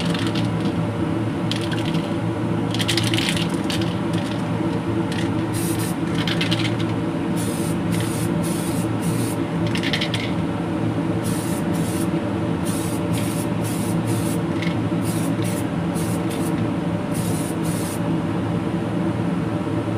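Short hisses of an aerosol can spraying 2K clear lacquer in passes over a carbon-fibre part, coming often from about five seconds in. Under them is a steady low hum, which fits the spray booth's exhaust fan.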